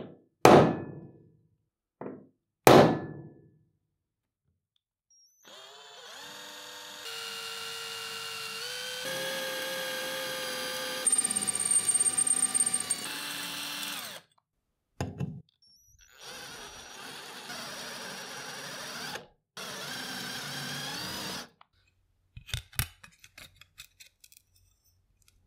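A centre punch struck three or four sharp knocks into a stainless steel plate, then a drill boring holes through the plate in two runs of several seconds each, its pitch shifting as it cuts and squealing high for a moment in the first run. A few light clicks near the end.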